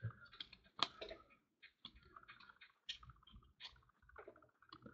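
Faint, scattered clicks and soft rustles of football trading cards being handled, slid and flipped one behind another by hand. The sharpest click comes a little under a second in.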